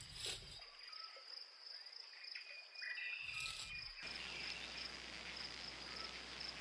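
Faint woodland ambience: a steady, pulsing, high-pitched insect trill runs throughout, with a few short bird chirps in the first half. A soft background hiss comes in suddenly about four seconds in.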